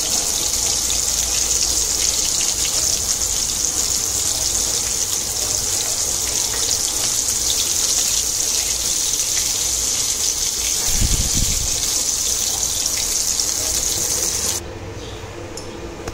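Coated katla fish pieces sizzling in hot oil in a pan, a steady hiss, during their second fry to crisp them. A low thud comes about eleven seconds in. The sizzle cuts off suddenly near the end.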